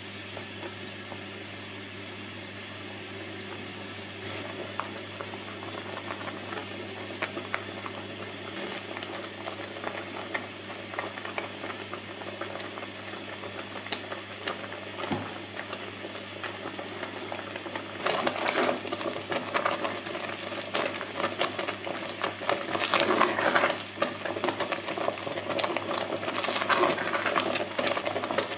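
Thick strawberry jam boiling in a stainless steel pot as it cooks down: a dense crackle of bubbling pops. The pops get much louder and busier about two-thirds of the way through. A steady low hum runs underneath.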